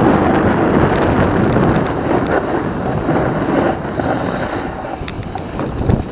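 Wind buffeting the microphone of a camera carried downhill by a moving snowboarder, mixed with the rushing scrape of the board over the snow; it eases a little in the second half.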